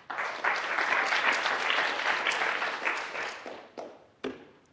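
Audience applauding: it starts abruptly, holds for about three seconds, then fades, with a couple of last single claps near the end.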